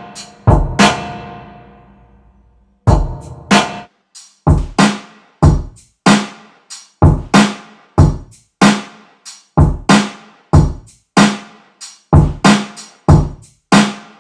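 Drum loop of kick and snare hits played through a tube-radio reverb effect. About half a second in, one hit's reverb tail dies away over about two seconds, then the beat picks up again at roughly two hits a second.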